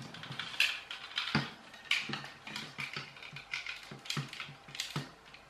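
Light plastic clicks and rattles from a toy air-engine racer car and its hand pump being handled: a steady run of short clicks, roughly two a second.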